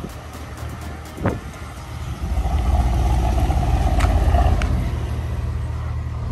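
Car engine and road rumble: a single sharp knock about a second in, then the engine pulls harder for about two seconds, swelling in pitch and volume, before settling back to a steady run.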